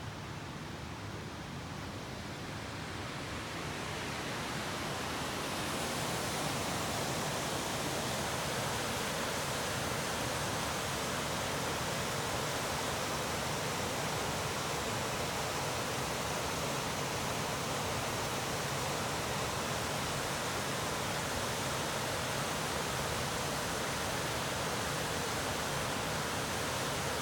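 Small waterfall rushing steadily. It grows louder over the first six seconds or so, then holds level.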